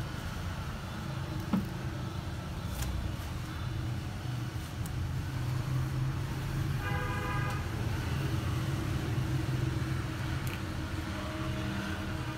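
Steady low mechanical hum, with a single sharp click about a second and a half in and a short horn-like toot about seven seconds in.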